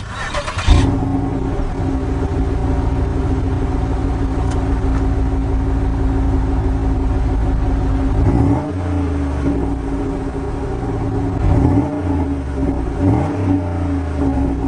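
A car running steadily with engine hum and road rumble, after a single thump about a second in.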